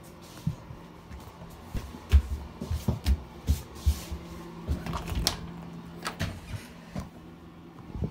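Handling noise from a phone being moved about close to a door frame: irregular soft knocks and thumps, busiest in the middle, over a faint steady low hum.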